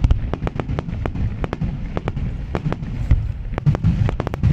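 Aerial fireworks bursting in quick, irregular succession: many sharp cracks a second over a continuous low rumble of booms.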